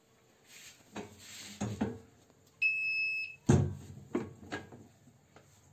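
Electric chapati press machine's buzzer sounds one steady electronic beep lasting under a second. Right after it comes a loud clunk and a few lighter knocks from the metal press.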